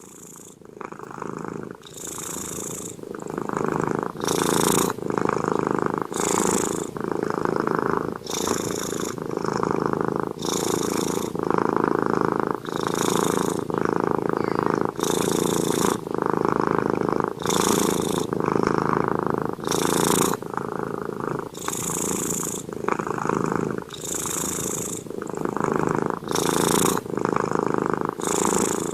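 Domestic cat purring steadily, the purr swelling and easing with each breath, about one breath every two seconds.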